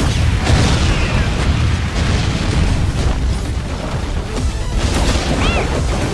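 Loud music mixed with heavy boom and explosion effects over a deep rumble, with a sudden blast right at the start and another hit about five seconds in.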